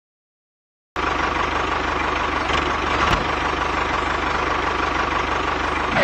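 Tractor engine running steadily with a fast, even knock, starting about a second in.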